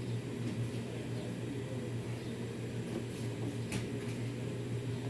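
A steady low mechanical hum, with a single sharp click about three and a half seconds in.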